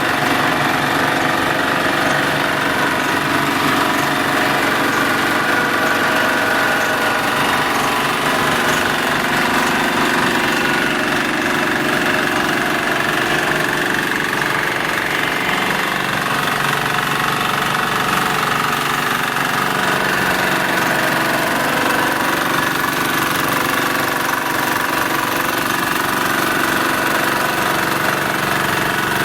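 Fasta FVR850D ride-on vibratory road roller's engine running steadily under a continuous rapid knocking pulse.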